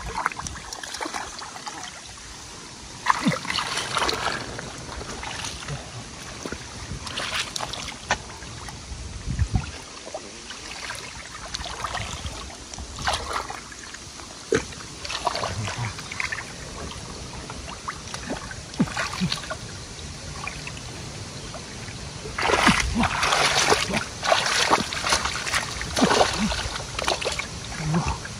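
Shallow water splashing and trickling in irregular bursts as hands work in it, with a longer spell of heavier splashing about 22 seconds in.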